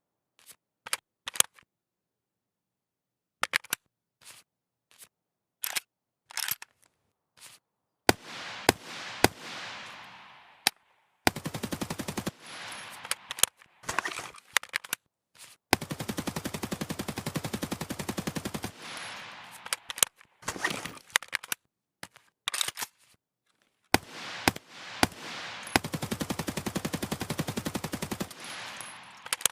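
AKS-74U assault rifle gunfire: scattered single sharp shots at first, then several long full-auto bursts of rapid shots, the longest about three seconds, with shorter strings of shots in between.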